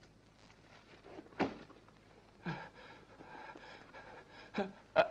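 A few short knocks and handling noises, separated by quiet stretches over faint room tone.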